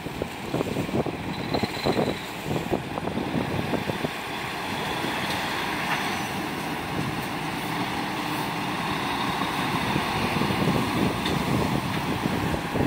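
Heavy box truck driving slowly past, its diesel engine running and growing louder as it comes alongside, with wind gusting on the microphone in the first few seconds.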